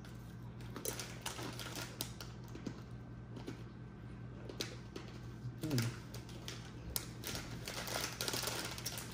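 Irregular crunchy clicking of barbecue beef Big Hoops potato-ring crisps being chewed, mixed with the crinkle of the crisp packet.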